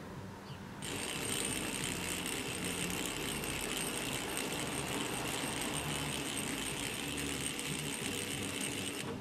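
Small battery-driven electric motor spinning an old clock face mounted on a coiled spring, a steady fast whirring rattle. It starts suddenly about a second in when the push-button is pressed and cuts off suddenly near the end when it is released.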